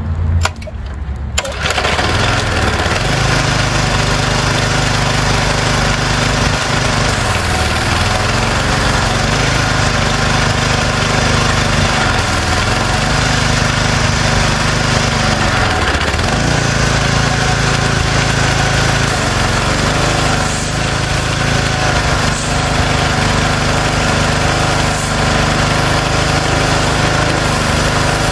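Briggs & Stratton 6.75 ft-lb single-cylinder engine on a Troy-Bilt pressure washer being started, catching about a second in and then running steadily, its pitch sagging briefly a few times. It starts and keeps running after its carburetor float and needle were freed and now seal, which had left it dead for two years.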